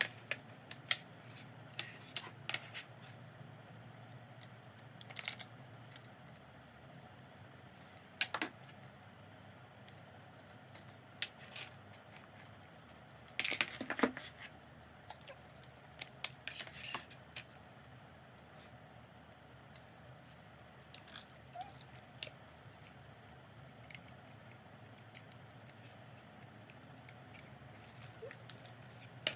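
Scattered clicks, taps and light rustles of small objects being handled, with the loudest knocks about a second in, around eight seconds and around thirteen to fourteen seconds, over a faint steady room hum.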